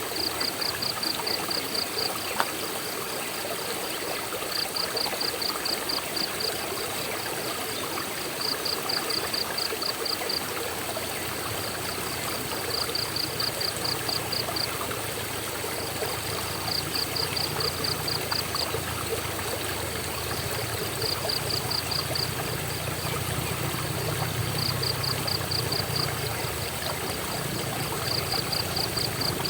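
Waterfall and stream water rushing steadily. A high, quick pulsed trill of about eight pulses comes through about every four seconds, and a low hum rises under the water in the second half.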